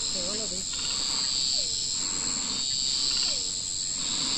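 A steady, high-pitched chorus of insects droning without a break. Through it, a faint low call slides downward about every second and a half.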